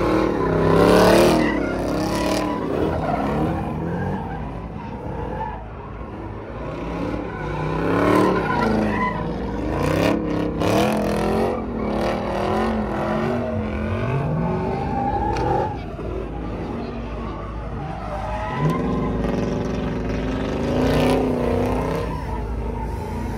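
Car engines revving up and down repeatedly, with tyre squeal and skidding from wheelspin.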